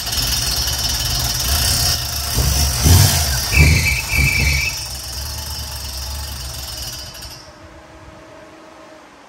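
350 small-block Chevy V8 running on a test start, revved a couple of times by hand at the carburetor with a brief high squeal, then dying out about seven and a half seconds in. A metallic clicking runs under it, which the owner puts down to the alternator's fan blades hitting the alternator bracket.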